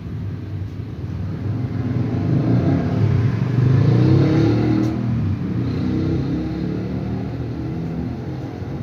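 A passing motor vehicle: its engine noise builds to a peak about four seconds in, then fades.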